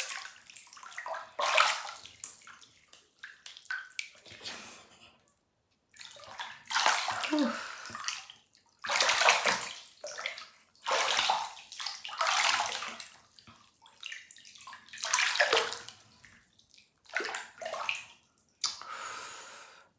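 Bath water splashing and sloshing in a bathtub as a bather stirs it, in irregular bursts about a second long with short pauses between.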